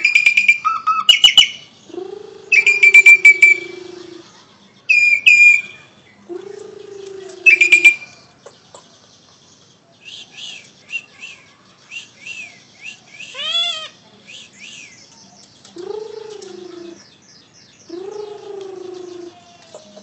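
Javan pied starling (jalak suren) singing a loud, varied song. Long low whistled notes that slide downward alternate with loud harsh high notes. From the middle on come quick chirps and a short rising whistle.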